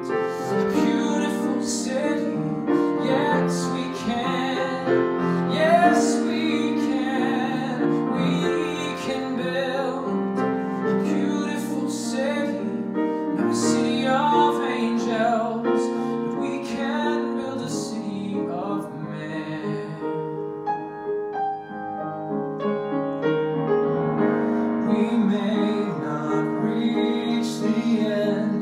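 Male voice singing a slow ballad live into a microphone, with piano accompaniment.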